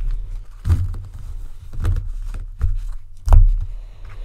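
Four or so separate knocks and thumps, each with a low thud; the loudest comes about three seconds in.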